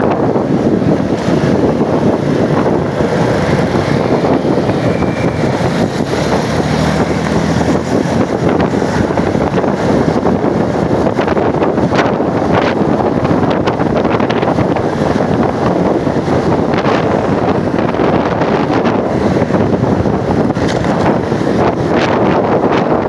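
Steady, loud wind noise on the microphone over road vehicle noise, with no horn blowing.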